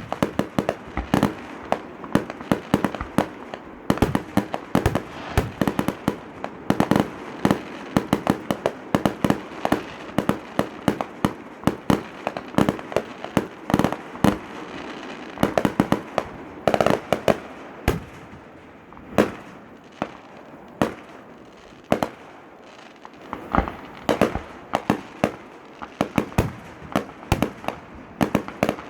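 Fireworks exploding in quick, irregular bangs and pops, several a second at times, with a short lull about two-thirds of the way through.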